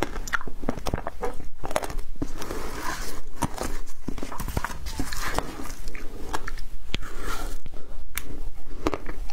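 Frozen passion fruit ice being crunched and chewed, and cracking as the slab is handled, close to a clip-on microphone: many irregular sharp cracks and crunches.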